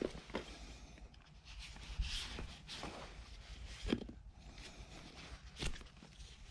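Hands working the strands of an eight-strand fibre rope during an eye splice: irregular rustling and rubbing of the rope, with a few scattered soft knocks.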